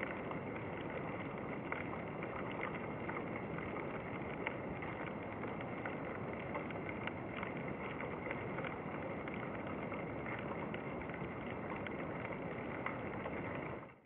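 Underwater ambience picked up by a diver's camera below the surface: a steady, muffled hiss with faint scattered clicks, fading out at the very end.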